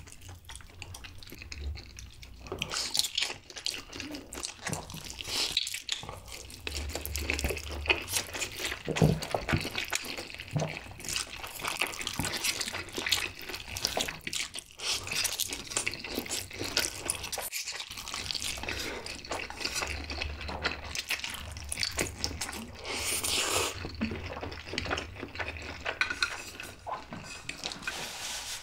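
Close-miked eating sounds of two people slurping and chewing saucy instant noodles: wet smacking and sucking, with a few longer, louder slurps.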